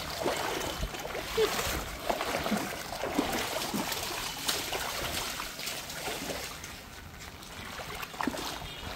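Feet splashing and wading through ankle-deep standing water, a run of irregular splashes and sloshes.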